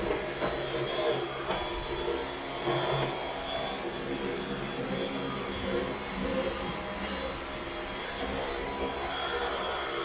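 Dyson cordless stick vacuum running: a steady motor whine over a rush of air, its level rising and falling slightly.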